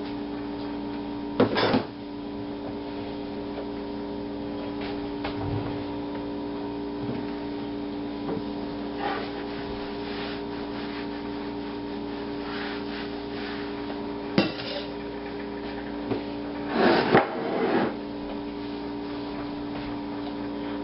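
Kitchen handling sounds over a steady appliance hum: a knock about a second and a half in, another near the middle, and a longer clatter of kitchenware near the end.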